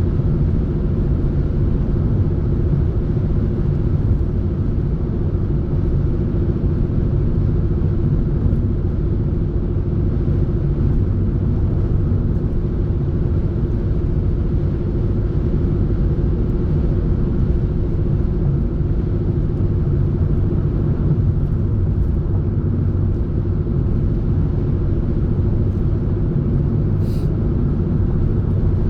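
Steady low rumble of a running vehicle, engine and road noise with a few held hums.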